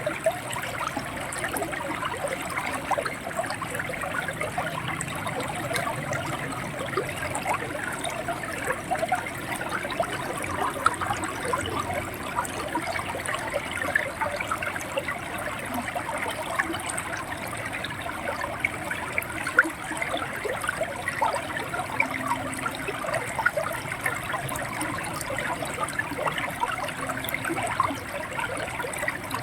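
River water flowing steadily over rocks, a continuous babble of many small splashes and gurgles.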